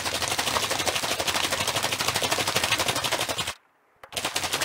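Small plastic bottle of white paint and red colorant shaken hard by hand, the liquid sloshing and knocking inside in a fast, even rhythm as the colorant is mixed into the paint. It stops a little past three and a half seconds in, then starts again about half a second later.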